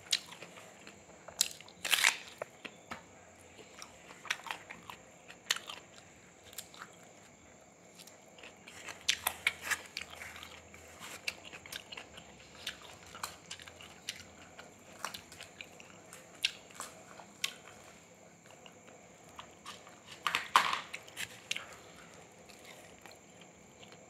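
A person biting and chewing crunchy food close to the microphone, in irregular sharp crunches with quieter chewing between them; the loudest crunches come about two seconds in, around ten seconds in and about twenty seconds in.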